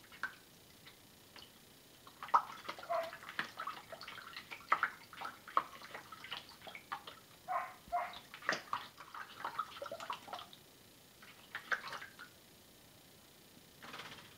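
A cat splashing and scooping water in a plastic water bowl with its paw: irregular small splashes, plops and drips. They come thickest from about two seconds in until about ten seconds, then in two short bursts near the end.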